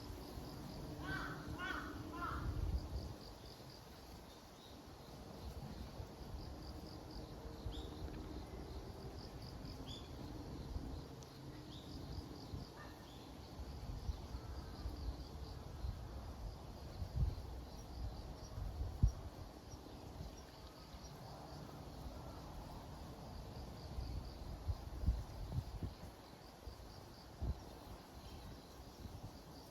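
A crow cawing a few times about a second in, over steady pulsing insect chirping and low wind rumble with occasional gusts on the microphone.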